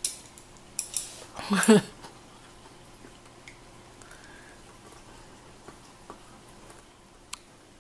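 A brief voiced sound, a short word or murmur, about a second and a half in, after a couple of light clicks. Then low room tone with a few faint ticks.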